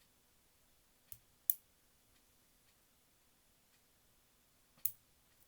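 Three sharp, small clicks, about a second in, half a second later and near the end: small parts and tools being handled on a cassette player's tape mechanism while its pinch-roller bracket spring is fitted.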